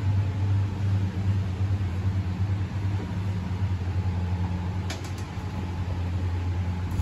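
Steady low machine hum, like an engine or motor running at a constant speed, with a few faint clicks about five seconds in.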